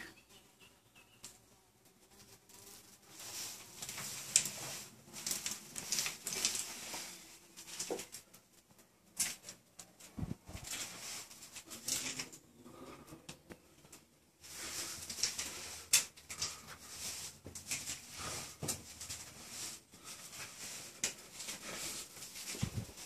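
Irregular footsteps crunching and scraping over dry leaves and gritty debris, with a few sharp louder clicks.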